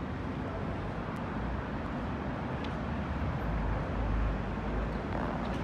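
City street ambience: a steady hum of road traffic, with a low rumble growing stronger past the middle.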